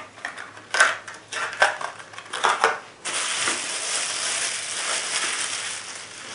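Plastic packaging being handled: several sharp crackles from a clear plastic blister pack, then about three seconds of continuous crinkling as bubble wrap is unwrapped from a flashlight reflector.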